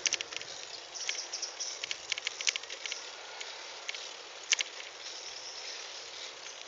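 Bicycle riding along a paved path: steady tyre and wind noise, with irregular clusters of sharp clicks and rattles, the loudest about four and a half seconds in.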